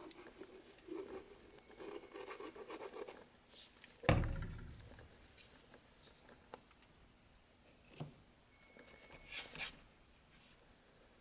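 Small hardwood pieces being handled and pressed into wet glue. There is light rubbing and scraping, a sharp wooden knock about four seconds in, and a few softer taps later.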